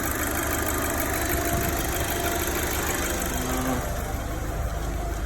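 Audi B7 A4's turbocharged four-cylinder engine idling steadily and evenly, running smoothly with no sign of a vacuum leak after a PCV delete plate has been fitted.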